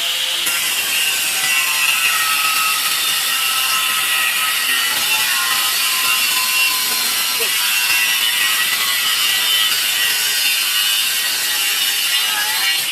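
Electric 45-degree bevel tile-cutting machine running steadily, its motor and blade giving a loud, high whine with a hiss over it.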